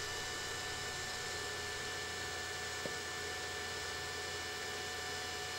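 Steady low electrical hum with a few faint steady higher tones over a hiss, and one faint tick about three seconds in.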